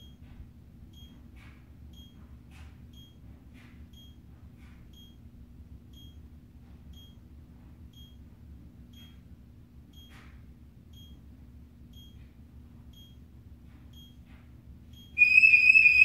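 SimpliSafe security system counting down its entry delay with faint short high beeps, about two a second. About fifteen seconds in, the alarm siren goes off, very loud, a high warbling tone.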